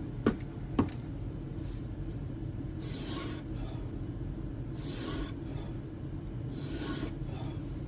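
Whetstone on a guided knife-sharpening system drawn across a steel blade edge in three slow, separate strokes about two seconds apart, over a steady low hum. Two sharp clicks come just before the strokes begin.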